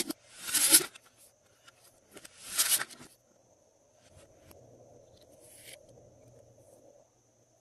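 Glossy slime being handled and mixed: two short, loud bursts of crackling, squishing noise about a second apart, followed by soft, faint rubbing.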